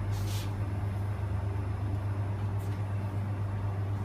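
Steady low mechanical hum, with a brief hiss about a quarter second in.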